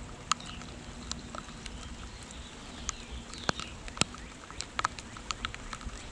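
Rain pattering, with irregular sharp drops ticking on a hard surface, two of them louder about three and a half and four seconds in. Birds call faintly in the background.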